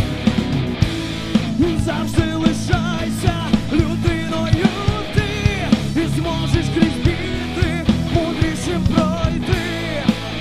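Live rock band playing a song: a steady drum beat with regular loud hits over bass and guitars, and a wavering lead melody line on top.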